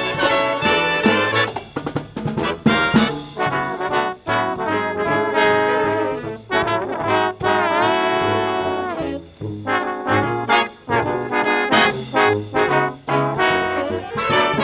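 A marching band of saxophones, trombones, trumpets, sousaphone and drums playing a lively tune close up, the trombones loudest, with a long held chord around the middle.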